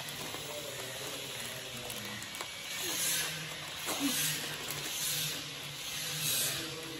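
Lay's potato chip packets crinkling as they are handled and chips being crunched, in rustly swells about once a second over a steady low hum.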